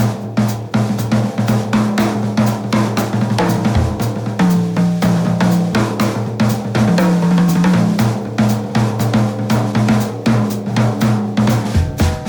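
Background music: a drum kit playing a steady beat over a bass line.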